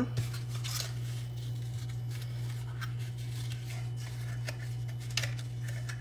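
Kraft card stock being handled and folded, with light rustling and a few small crinkles and taps of the card. A steady low hum runs underneath.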